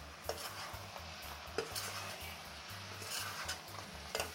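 Chicken pieces in spiced masala being stirred in a metal kadai, the utensil scraping and knocking against the pan about three times over a light sizzle, as the just-added salt is mixed in.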